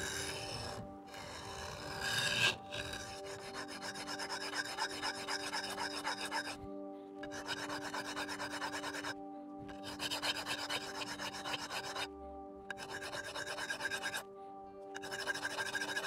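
Steel knife blade scraping back and forth on an extra-coarse DMT diamond bench stone in quick, rasping strokes, grinding chips out of the edge. The strokes come in several runs broken by short pauses.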